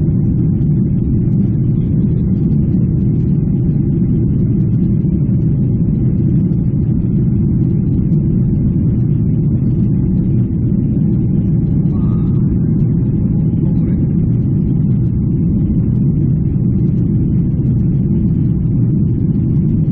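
Jet airliner cabin noise during the climb after takeoff: the steady low drone of the engines and the air rushing past the fuselage, heard from a seat behind the wing.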